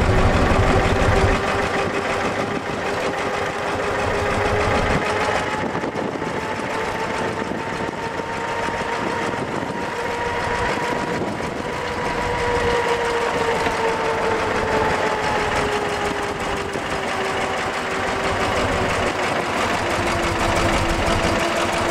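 1935 Morgan three-wheeler's engine running steadily under way. Its note rises slowly through the first half and eases back down toward the end.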